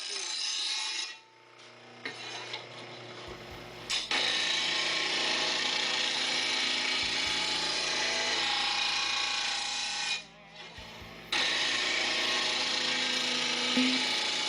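R.B.G. 2181 P electric blade grinder grinding the edge of a lawn mower blade in long steady passes. The grind drops away about a second in and again around ten seconds in, then picks up again.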